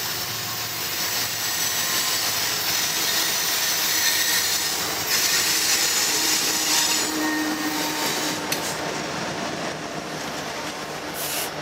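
Diesel-electric freight locomotives, a GE ES40DC followed by an EMD SD70M-2, passing close by: a steady loud rumble and hiss of engines and steel wheels on rail, loudest in the middle as the units go by.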